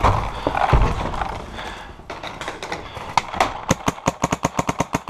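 Paintball markers firing in rapid strings of sharp pops, speeding up to about seven shots a second near the end. In the first second, bumping and rustling close to the microphone.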